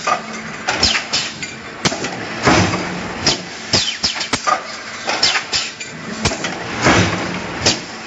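Stamping press running a multi-station deep-drawing die: a string of sharp metallic clanks and knocks, a few a second, with heavier clusters every second or two, over a steady low machine hum.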